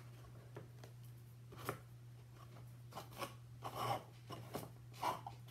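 Cardboard pieces handled and pressed together by hand: scattered light taps, scrapes and rustles, the strongest about four and five seconds in, over a steady low hum.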